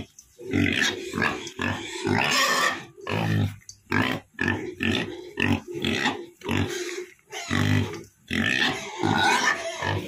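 Duroc–Large White pigs grunting over and over in short bursts, one after another with only brief gaps.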